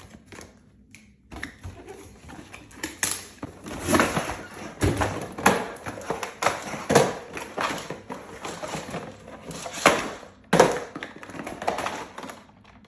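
Cardboard box and packaging handled while an RC truck is taken out: irregular knocks, scrapes and rustling.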